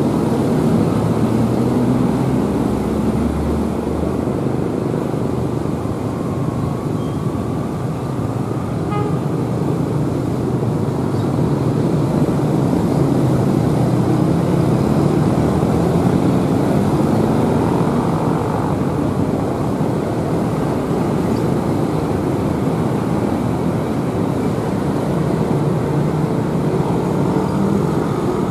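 Diesel locomotive engine running as it hauls a passenger train slowly toward the listener: a steady, loud drone whose pitch slowly rises and falls.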